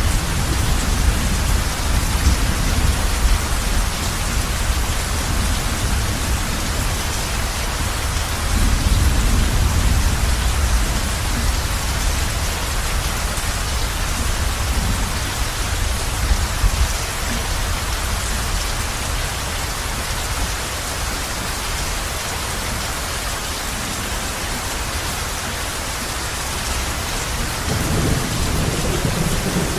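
Heavy rain falling steadily on a roof, with low thunder rumbling underneath that swells about eight seconds in and again near the end.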